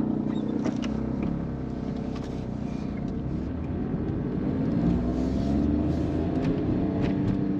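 Car engine and tyre noise heard from inside the cabin as the car drives along, the engine note climbing a little about halfway through as it speeds up, with a few light clicks and rattles.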